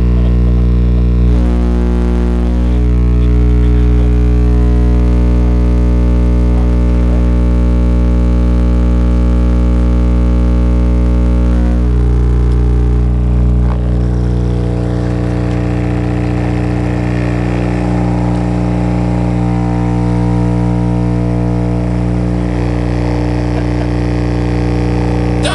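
Two Sundown E8 subwoofers driven directly by 120-volt wall-socket mains current, giving a loud, steady buzz at mains frequency with many overtones. About 14 seconds in, the deepest part weakens and the character of the buzz changes.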